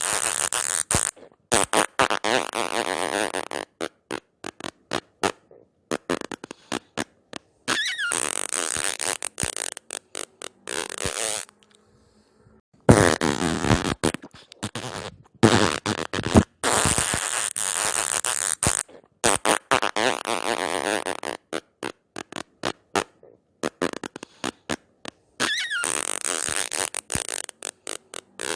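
A string of fart sounds, one after another. Some are long sputtering ones of two or three seconds made of rapid pops, others are short. Brief pauses separate them.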